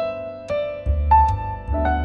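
Background piano music: a slow melody of single struck notes over sustained low bass notes.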